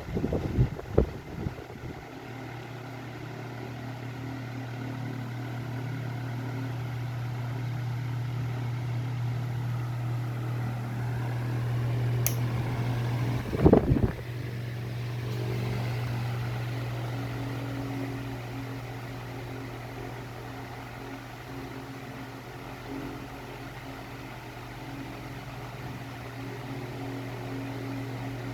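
Arge 60 cm, 200 W wall-mounted oscillating fan running with a steady low hum that slowly swells and fades. A few knocks come in the first second or so, and a sharp knock, the loudest sound, comes about fourteen seconds in.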